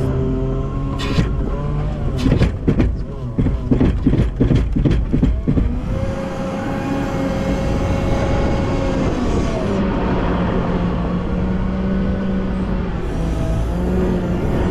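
Wheel loader's diesel engine running under load, its pitch rising and falling with the throttle. For the first few seconds a rapid run of knocks and clatter sounds over the engine.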